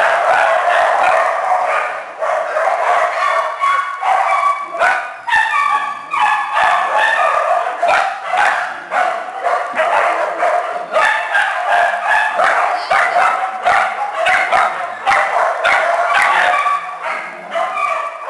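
A pack of small kennel dogs barking and yipping at once, a continuous, overlapping chorus of high-pitched barks.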